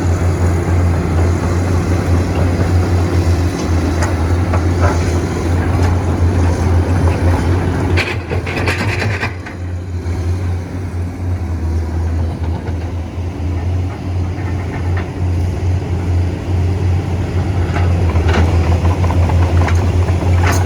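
Excavator's diesel engine running under load with a steady low drone. A brief harsher burst comes about eight seconds in, then the engine eases off for several seconds and picks up again near the end.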